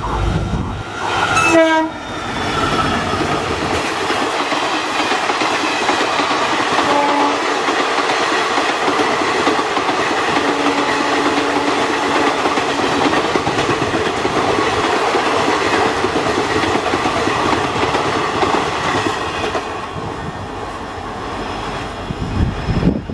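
Indian Railways WDG-4 diesel locomotive sounding its horn as it passes, the note dropping in pitch as it goes by, followed by the steady rattle and rush of the express train's coaches clattering past on the rails, easing off near the end.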